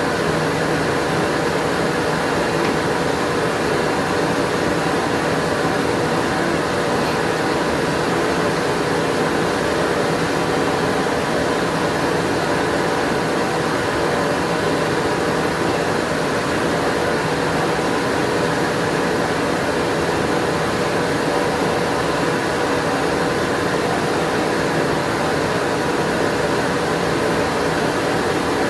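A steady, unchanging roar of machine or burner noise with a faint hum in it, such as a forge running during heat treatment.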